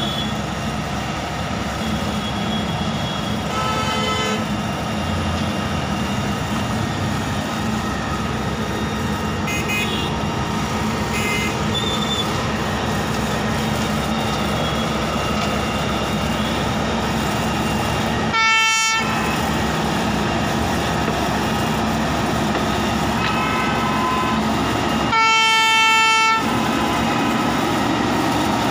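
Railway ballast regulating machine's diesel engine running steadily as it travels along the track, sounding its horn twice: a short blast about two-thirds of the way through and a longer blast of about a second near the end.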